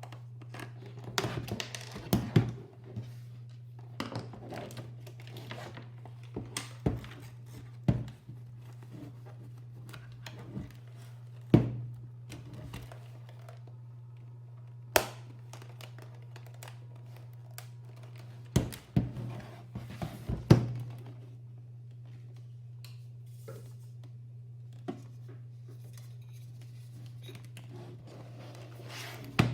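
Scattered sharp clicks and knocks of a mechanical keyboard's plastic parts being handled and taken apart, over a steady low hum.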